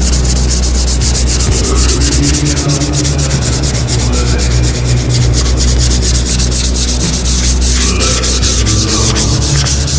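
400-grit sandpaper rubbed by hand over painted sheet metal on a pickup's fender lip, in quick, even back-and-forth strokes. This is fine sanding that feathers the edge of a touch-up paint tape line.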